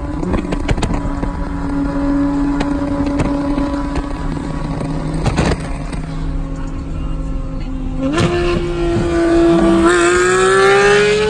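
Porsche 911 GT3 RS naturally aspirated flat-six through an IPE exhaust, cruising with a steady note and a few sharp exhaust pops. About eight seconds in it steps up, then revs up with a rising pitch and is loudest near the end.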